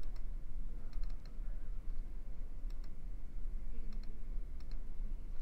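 Computer mouse buttons clicking several times, some in quick pairs, over a steady low hum.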